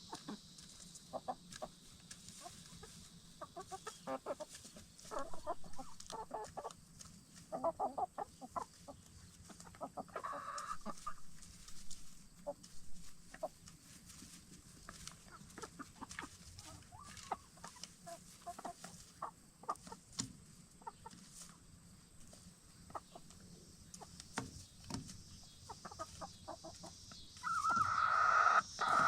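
Black Star and Bielefelder hens clucking softly: scattered short clucks throughout, with a louder, drawn-out call near the end.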